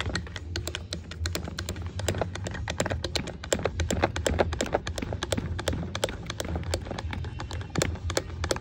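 Hand-lever grease gun pumped into an ATE brake caliper, with rapid, uneven metallic clicking of the lever and pump, to force the caliper piston out of its bore with grease pressure.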